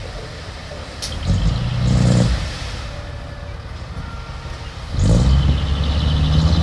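Diesel engine of earthmoving machinery revving up twice, about a second in and again near the end, with a sharp metallic knock just before the first rev.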